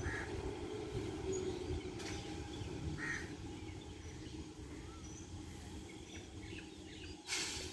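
Distant electric multiple unit (EMU) local train running away, its low rumble slowly fading. Birds call over it, with a crow cawing near the end.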